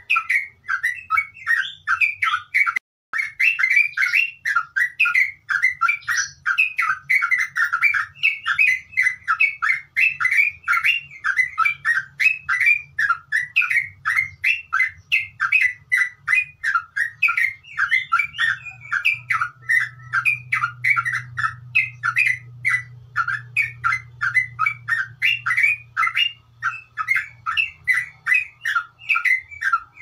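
Trucuk (yellow-vented bulbul) singing a long, unbroken chattering song, ngeropel style: quick bubbly notes several a second, with only a brief pause about three seconds in.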